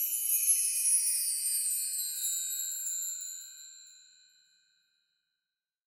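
A magic-sparkle sound effect: high, tinkling chime tones shimmer and then fade away over about four seconds.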